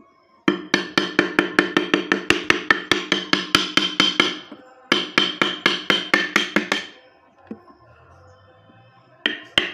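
Rapid, steady taps of a mallet on a wood-carving chisel, about four to five a second, each with a short metallic ring, cutting wood away. Two runs of tapping with a short break between, then a quieter pause of about two seconds before the tapping starts again near the end.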